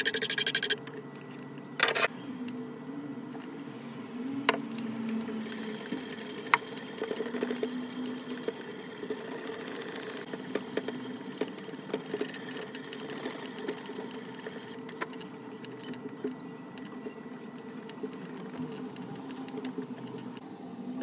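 Hand sharpening of a steel knife blade clamped in a vise: fast rasping file strokes that stop under a second in, then softer scraping with a few light clicks over a steady low hum.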